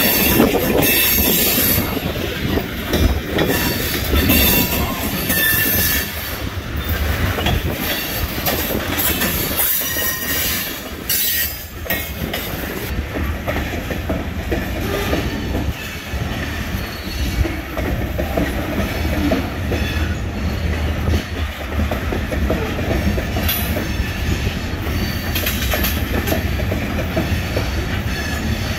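Loaded freight cars of a grain train rolling past with a steady rumble, their wheels squealing at times, most in the first several seconds.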